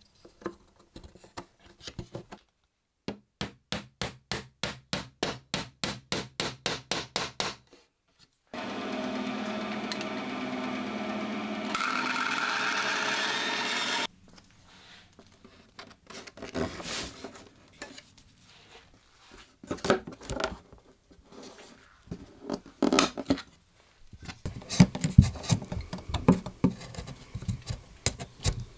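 Hand woodworking: a run of even strokes, about four a second, then a power tool running steadily for about five seconds, then a chisel paring wooden moulding, with sharp cracks as shavings split off near the end.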